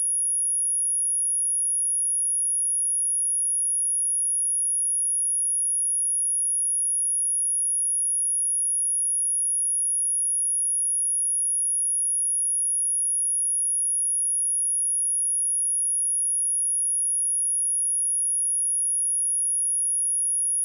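A steady high-pitched pure sine tone at 10435 Hz, one unchanging whistle-like pitch, played as a speaker test and cleaning tone.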